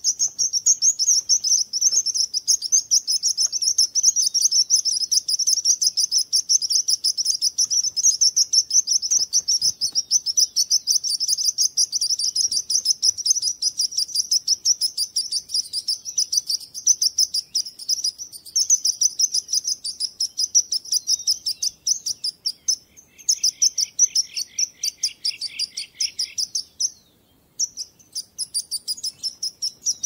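Sparrows chirping in a fast, unbroken stream of high chirps. A lower run of chirps joins for a few seconds past the middle, and there is a short break near the end.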